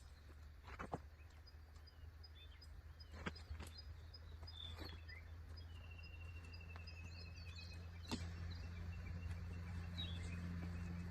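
Forest ambience: small birds chirping, with one bird giving a rapid trill of repeated notes midway. A handful of sharp clicks or knocks are scattered through it, over a steady low rumble that grows louder near the end.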